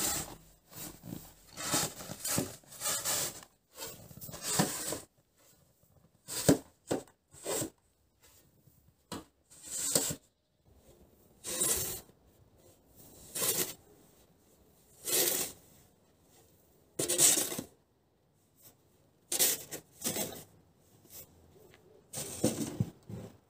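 Metal snow shovel scraping and scooping snow in repeated strokes, roughly one every second and a half to two seconds.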